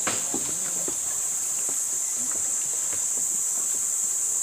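Insects droning steadily in the undergrowth, one unbroken high-pitched buzz, with a few faint knocks of footsteps near the start.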